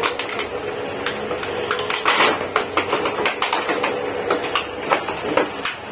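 Hard plastic toys and packaging being handled: a run of irregular sharp clicks and clacks.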